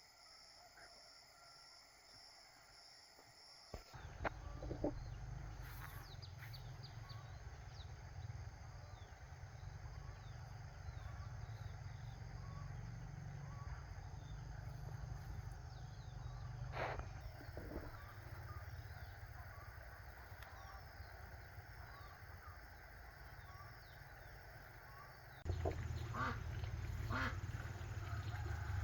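Many short bird calls, fowl such as ducks, over a low steady rumble that sets in about four seconds in; the calls grow louder near the end.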